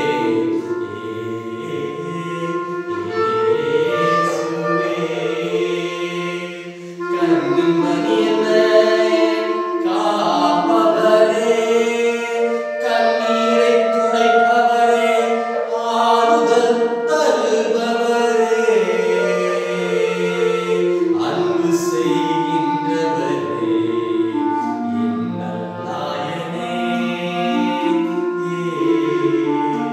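A voice singing a slow hymn with a clarinet playing along, held notes changing every second or two.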